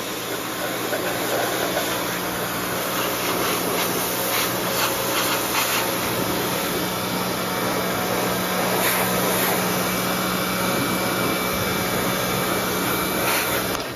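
Pressure washer spraying a steady high-pressure jet against the mower's metal handle and control box. Its motor hums steadily under the hiss of the water. It cuts off suddenly near the end as the trigger is released.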